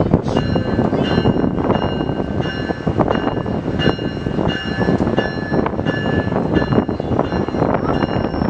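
Metrolink bilevel passenger train pulling slowly out of the station: steady rumbling from the train with irregular clanks, and a steady high ringing over it from about half a second in.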